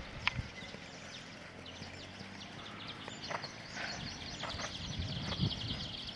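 A ridden horse's hooves thudding softly on a sand arena as it trots and canters. Birds twitter busily in the background, more thickly from about halfway through.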